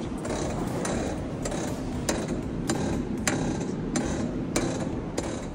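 Changan CS75 front shock absorbers squeaking over and over, about one squeak every 0.6 s, as the strut works up and down. The noise comes from the shock absorber rod itself, which the mechanic calls a common fault on Chinese cars, here at 40,000 km.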